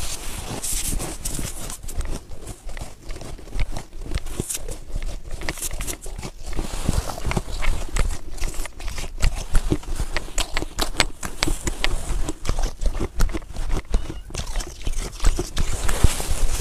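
Close-miked crunching of fresh snow being bitten and chewed, a dense run of crisp crackles and crunches.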